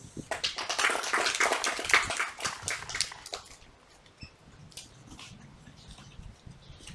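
A small group of seated children clapping for about three seconds, then thinning to a few scattered claps.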